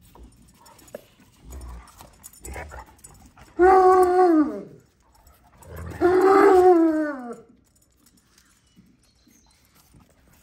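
A dog howling: two long, loud howls about two seconds apart, each sliding down in pitch at the end, with a few fainter short sounds before them.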